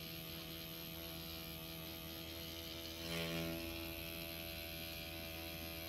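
Pen-style tattoo machine running with a steady electric hum as the needle works into the skin, briefly louder about three seconds in.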